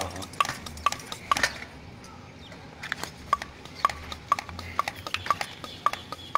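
Light, sharp metallic clicks at about two a second from a bicycle's rear wheel as its tyre is worked on at the valve and checked for pressure.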